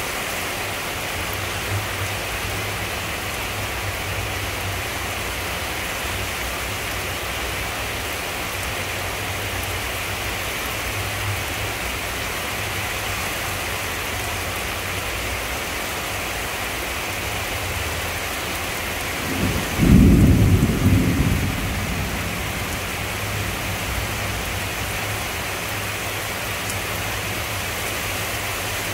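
Heavy rain falling steadily during a thunderstorm, with one loud, deep clap of thunder about twenty seconds in that rumbles for about two seconds before fading.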